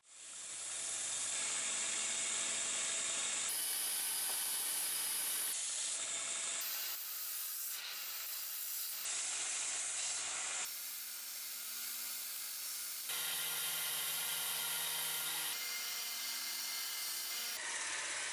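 Bench belt grinder running with an oak handle's brass ferrule pressed against the sanding belt, a steady, rasping sanding noise that shifts abruptly in tone several times. Near the end it gives way to a corded drill spinning a disc against the steel blade.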